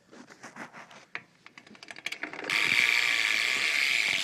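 Profile Mini rear hub on a BMX freewheeling: separate irregular clicks of the ratchet as the wheel starts to turn, then about two and a half seconds in the wheel is spun and the clicks merge into a steady, really loud buzz.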